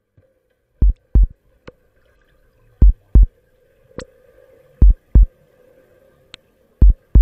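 Slow heartbeat sound, low double thumps (lub-dub) repeating evenly every two seconds, four beats in all, over a faint steady hum with a few light clicks.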